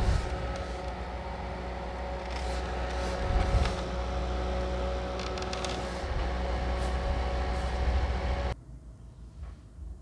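Mini evaporative air cooler fan running at its strong setting: a steady whir of airflow and motor hum, with brief rustles of paper strips flapping in the air stream. The sound cuts off suddenly about eight and a half seconds in, leaving faint room tone.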